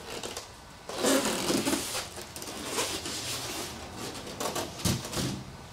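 Polystyrene foam packing tray rubbing and scraping as it is lifted off the box, in a few bursts, with a knock near the end.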